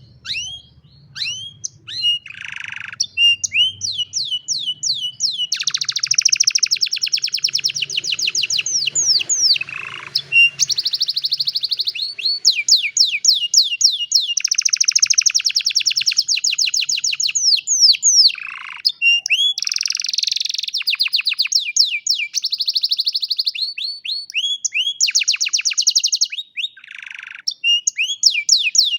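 Domestic canary singing a long, loud song of fast trills and runs of repeated downward-sweeping notes, broken by brief pauses.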